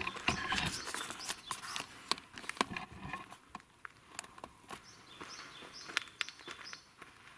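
Scattered clicks and crunches of movement on gravel ground, busiest in the first three seconds, with a few faint bird chirps.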